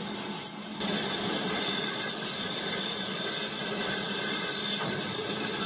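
BR Standard 9F steam locomotive letting off steam: a loud, steady hiss that starts abruptly about a second in.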